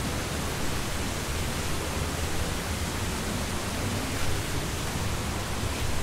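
Rushing river water in a rocky stream bed, a steady, even hiss without let-up.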